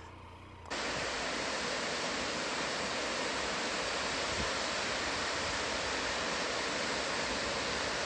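Steady rushing of Waihi Falls, a 25-metre waterfall pouring over a rock ledge into a pool, cutting in abruptly under a second in.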